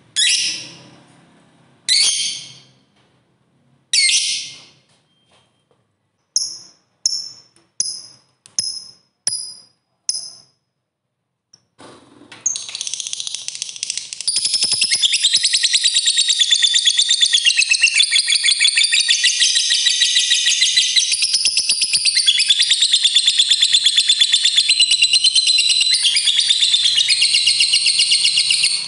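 Lovebird calling: three loud, sharp shrieks about two seconds apart, then six shorter chirps in quick succession. After a short pause comes a long, unbroken, rapid chattering trill, the 'ngekek panjang' prized in fighter lovebirds.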